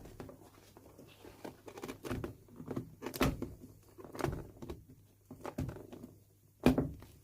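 Irregular knocks and scrapes of a hand tool prying the old top lift off a leather-soled golf shoe heel, with a sharp knock near the end.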